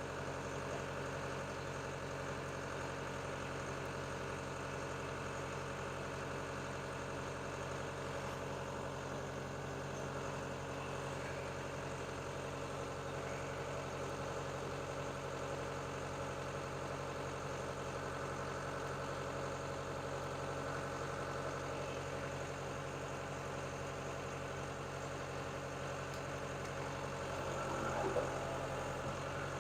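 Caterpillar 287B skid steer's turbocharged diesel engine idling steadily just after starting, with one brief louder sound near the end.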